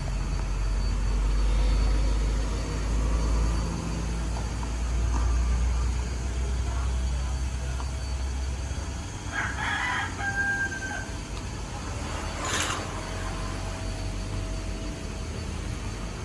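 A rooster crows once, a bit over nine seconds in, over a low steady rumble that stops just before it. A short sharp noise follows a couple of seconds later.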